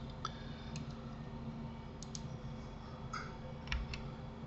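A handful of sparse clicks from a computer mouse and keyboard, about six over a few seconds, over a steady low electrical hum.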